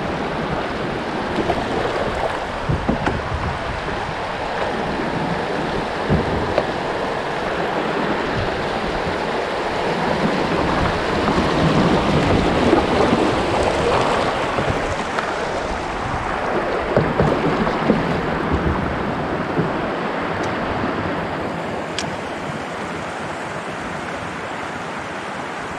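River riffle rushing and splashing against a kayak's hull as it floats down through shallow fast water, loudest about halfway through, where the water breaks over the bow.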